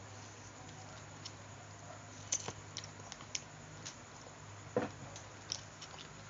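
Close-up eating sounds: scattered small clicks and wet smacks of chewing and mouth noises, with a louder smack near the end, over a low steady hum.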